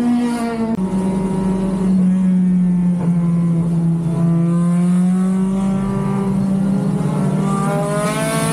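Race car engine heard from inside the cabin, running under throttle. Its pitch dips briefly about a second in, holds steady, then climbs near the end as the car accelerates.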